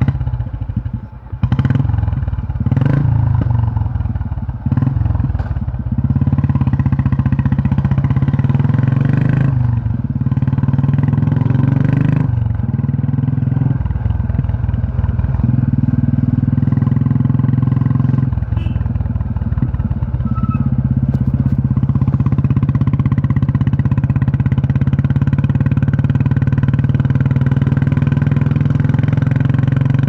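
Old Royal Enfield Bullet 350 (Electra 5S) with a cast-iron single-cylinder engine, catching after a kickstart and revved a few times. It then settles into its steady thump under way, easing off briefly a few times before running evenly.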